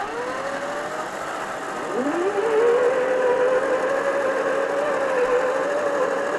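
Electric drive motor and drivetrain of a 1/10-scale TRX-4 RC crawler with a Jeep Cherokee pickup body, whining as it drives. The pitch rises with the throttle, dips sharply about two seconds in, climbs back and then holds steady.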